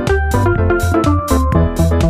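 Background electronic music with a steady beat, a heavy bass line and a synthesizer melody.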